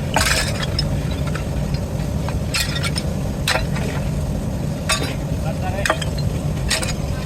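Steady low rumble of foundry machinery with sharp metallic clinks at irregular intervals, about one a second.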